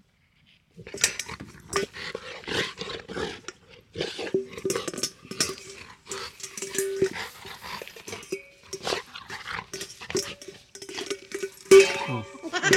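A golden retriever playing with a stainless steel dog bowl, knocking, scraping and rattling the metal bowl with its mouth and nose, with dog play noises mixed in. The clatter starts about a second in and is loudest near the end.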